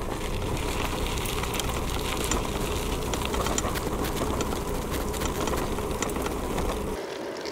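A loaded touring bicycle being ridden: a steady rushing rumble of tyres and wind on the microphone, with many small clicks and rattles from the bike and its bags. The deep rumble drops away near the end.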